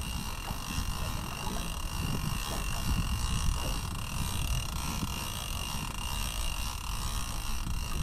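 Steady low wind rumble on the microphone and water around a small boat, with a fishing reel being wound in under load against a hard-bent rod as a fish is pulled up from deep water.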